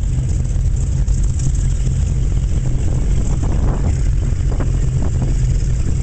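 Sunsation speedboat's engine running steadily under way, a constant low drone mixed with the rush of wind and water.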